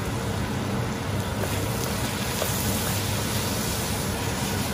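Diced ash gourd and onions frying in a pan, a steady sizzle over a low hum.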